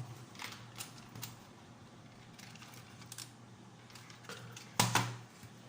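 Light clicks and rattles of plastic parts as an old toy horse-racing track that will not switch on is handled, with one sharp knock about five seconds in.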